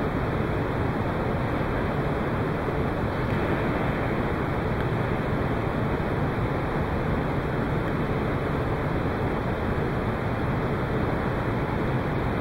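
Steady, even rushing background noise, with no ball strikes or other distinct sounds.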